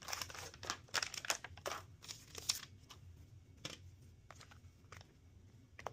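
Rustling, crinkling handling sounds, dense for the first two and a half seconds or so, then a few scattered light clicks.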